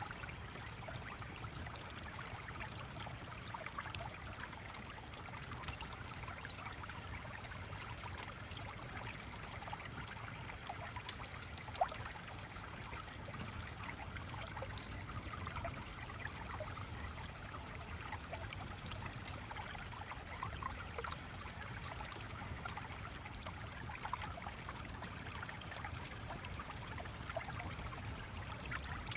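Steady flowing-stream ambience, water trickling and burbling with a low rumble underneath, with one sharp click about twelve seconds in.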